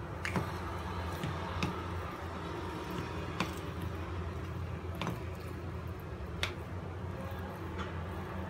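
A metal spoon mashing and stirring soft sweet potato and tapioca dough in a bowl: soft squishing with sharp clicks at irregular moments, about six in all, where the spoon strikes the bowl. A steady low hum runs underneath.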